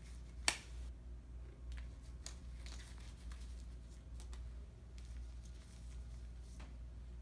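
Rubber sterile gloves being pulled on: a sharp snap of the glove about half a second in, then scattered light crinkles and ticks of glove and paper wrapper being handled.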